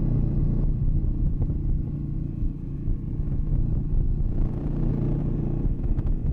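Dense, steady low rumbling noise, with a brighter hiss swelling in about four seconds in and fading before the end.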